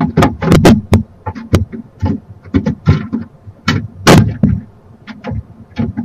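Barn owl moving about on the roof of a wooden nest box: an irregular run of thumps and sharp scratches of its talons on the wood, with a few louder clusters.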